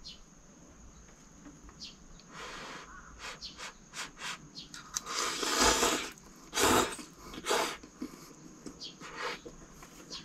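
A person slurping hot instant ramen noodles in a series of breathy slurps, the longest and loudest about five to six seconds in.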